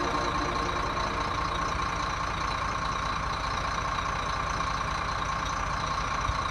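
Heavy truck diesel engine idling steadily, a low even rumble with a steady higher hum over it, from a rotator recovery wrecker working its crane.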